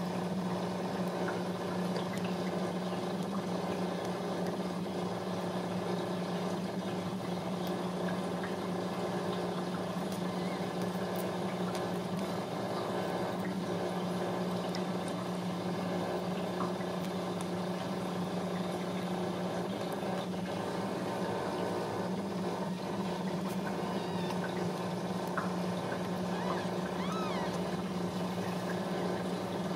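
Ragdoll mother cat purring steadily and low while her newborn kittens nurse, with a few faint high squeaks near the end.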